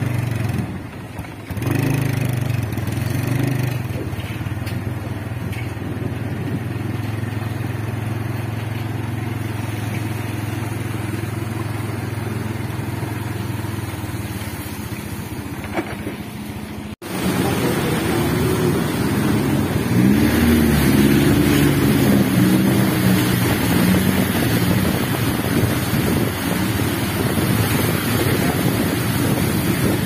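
Motorcycle engine running steadily while riding along a wet road. After a sudden cut about halfway through, a louder rushing of wind and water takes over as motorcycles ride through a flooded street, with engine pitch rising and falling.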